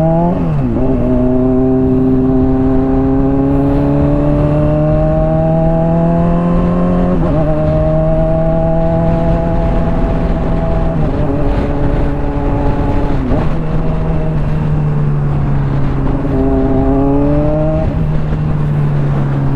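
Honda CBR600RR's inline-four engine with a Hotbodies Stinger slip-on exhaust, cruising on the street. Its note drops sharply about half a second in, then climbs slowly. It changes again around seven and thirteen seconds in, and rises and falls once more near the end, like gear changes and throttle roll-ons.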